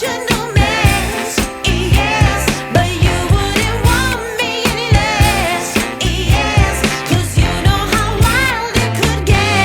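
A song with a steady beat and a singing voice.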